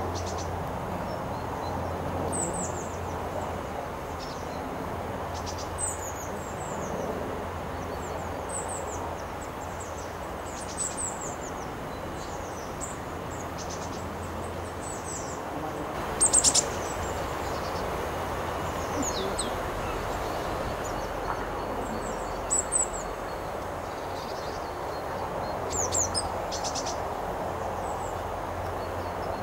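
Small songbirds giving high, thin calls: short downward chirps every few seconds, with a quick run of calls about halfway through. Steady background noise and a low hum run underneath.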